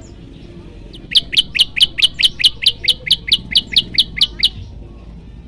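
Common tailorbird giving its loud rapid-fire call: a run of about sixteen sharp, high, down-slurred notes at about five a second, starting about a second in and stopping near the end.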